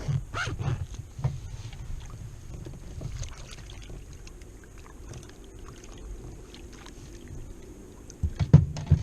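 Kayak moving on the water: a steady low rumble of water and wind against the hull with faint scattered clicks, then a quick cluster of loud knocks a little after eight seconds in.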